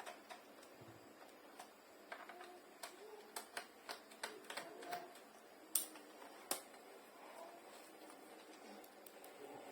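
Scattered light clicks and taps of a laptop's plastic case parts and small screws being handled during disassembly. The two sharpest clicks come a little under six and about six and a half seconds in.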